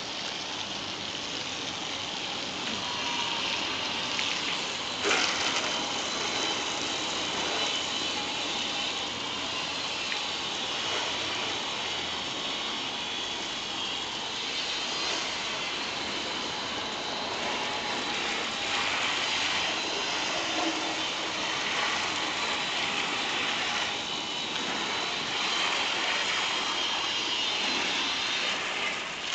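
Pressure washer spraying water onto a car's sand-covered bodywork: a steady hiss of spray over the running pump, with one sharp knock about five seconds in.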